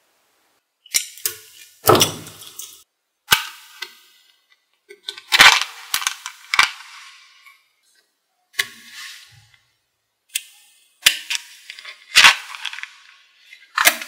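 Small magnetic balls clicking and clattering as they snap together, in separate bursts of sharp clicks and short rattles every second or two.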